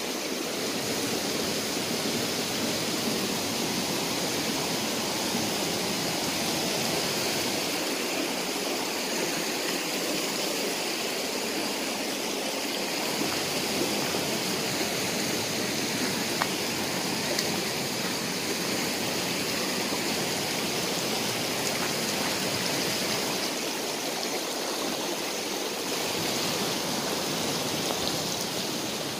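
Shallow stream rushing over rocks, a steady even rush of flowing water.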